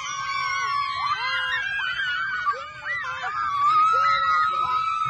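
A group of children screaming and squealing together in play, several high voices overlapping, with long held screams.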